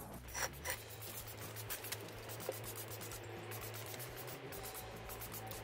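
Soft rubbing and scratching of hands firming potting soil around a ficus in a glazed ceramic pot, with two brief scrapes about half a second in and faint scratches after.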